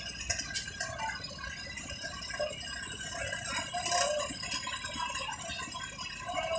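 Work noise of a concrete pour: a transit mixer truck running at the slab, with irregular rattling and scraping as the wet concrete is placed. The loudest knock comes about four seconds in.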